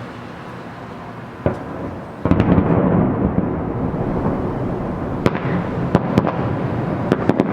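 Fireworks display: a bang about a second and a half in, then a louder boom just after two seconds with a long rumble, followed by a string of sharp cracks near the end.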